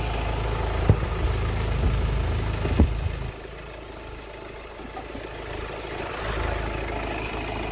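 Ford Ranger 2.2 litre four-cylinder turbodiesel idling, running louder than normal with a noise that the owner suspects is lifter ticking. Two sharp knocks come about one and three seconds in, and the engine sound drops abruptly in level just after three seconds, then carries on steadily.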